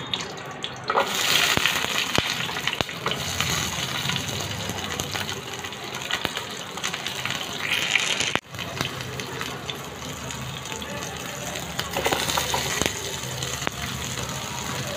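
Hot oil sizzling in a frying pan as green chillies fry with whole spices. The sizzle jumps up suddenly about a second in, breaks off briefly a little past halfway, and flares again near the end as sliced onions go into the oil.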